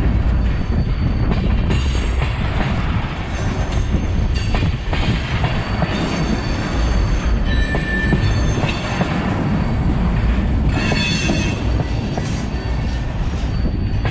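Tank cars of a Union Pacific freight train rolling past close by, their steel wheels rumbling and clacking over the rails. High-pitched wheel squeal comes and goes, strongest about eleven seconds in.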